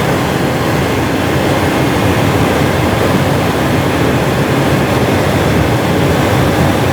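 Tractor-trailer cruising at highway speed: a loud, steady mix of engine, tyre and wind noise.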